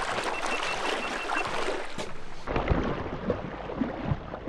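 Water sloshing and splashing around a person's legs as they wade through shallow river water in chest waders, with irregular low thumps of the steps. The sound changes abruptly about two and a half seconds in, from an even hiss of moving water to closer, choppier splashes.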